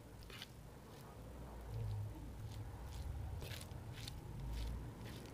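Fingers mixing cooked rice with red amaranth saag on a steel plate: faint soft squishing with a few short crisp clicks.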